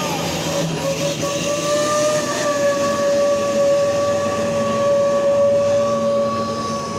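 Heavy cargo truck passing close, its engine running under a loud, steady, high-pitched whine that wavers slightly about two seconds in.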